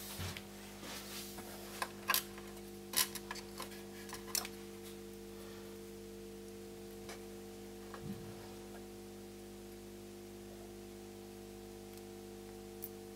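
Small sharp clicks and taps of a plastic clamshell socket adapter for a chip programmer and metal tweezers, handled while a flash chip is set into the socket. The clicks come in a quick run in the first few seconds, then only a few faint taps, over a steady low hum.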